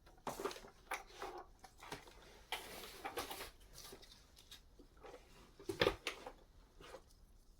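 Light handling noises: scattered soft knocks, rubs and rustles as the vacuum cleaner and its parts are handled, with a longer rustle about three seconds in and a sharper knock near the six-second mark.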